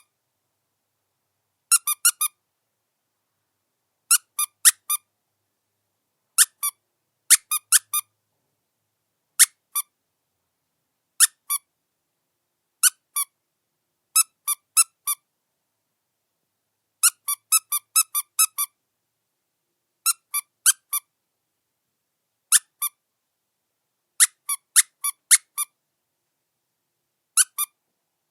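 Squeaky rubber dog chew toy squeezed in short squeaks, in groups of one to four at irregular intervals with silence between.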